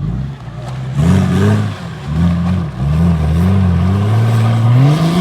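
Off-road 4x4's engine revving hard, its pitch rising and falling several times as the throttle is worked, then climbing steadily near the end.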